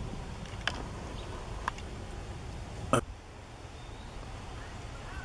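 Faint steady low rumble with a few sharp clicks, the loudest about three seconds in.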